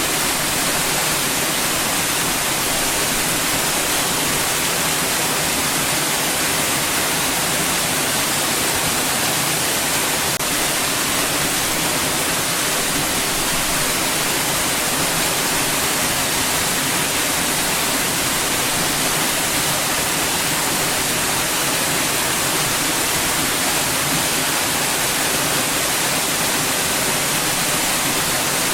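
Steady white noise: an even, unbroken hiss that is brighter toward the top and has almost no deep bass.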